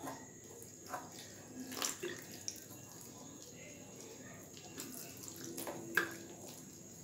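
Water poured from a plastic bottle into a steel bowl of flour and egg, faint, while a spoon stirs the mix and clicks against the bowl a few times, most sharply near the end.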